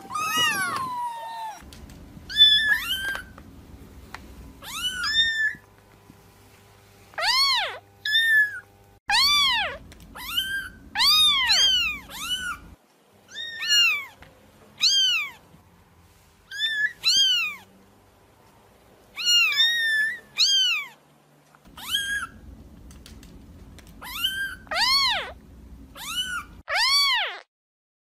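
Kitten mewing over and over: many short, high mews, each rising then falling in pitch, mostly in quick runs of two or three with short pauses between.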